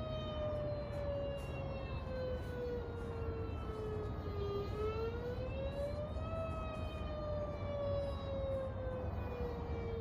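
Mini Whelen warning siren sounding a slow wail. Its steady tone glides down in pitch over about four seconds, rises again over about a second and a half, then falls slowly once more.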